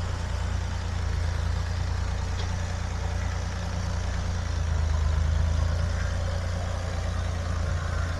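Engine of a piece of farm equipment running steadily at a low, even idle, swelling slightly about five seconds in. It is running to show that its shaft turns and works.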